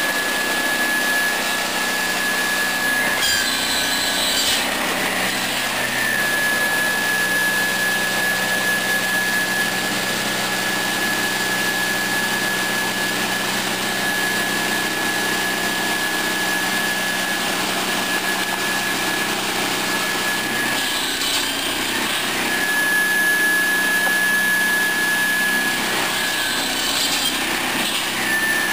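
Swing-arm circular saw with a 700 mm blade, driven by a 13 hp gasoline engine, running with a steady high whine and cutting through firewood logs, once about three seconds in and twice more near the end.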